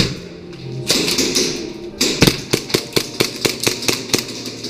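Airsoft gun firing a rapid string of about a dozen sharp shots, around six a second, after a sharp click at the very start and a rush of noise about a second in.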